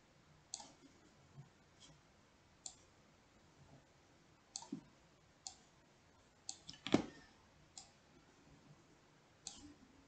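Computer mouse buttons clicking, about a dozen faint, sharp clicks at uneven intervals, with one louder click about two-thirds of the way through.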